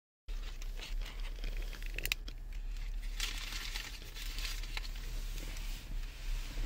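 Paper crinkling and rustling with scattered sharp clicks, over a low steady hum.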